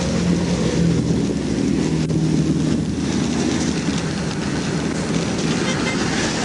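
Steady highway roadside noise: an idling engine's low rumble mixed with the hiss of interstate traffic passing.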